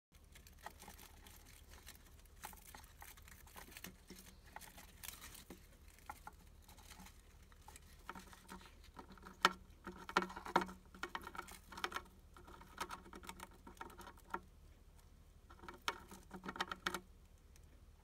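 Hamster crunching and chewing a cicada: a run of small crisp crackles and clicks, denser and louder from about eight seconds in.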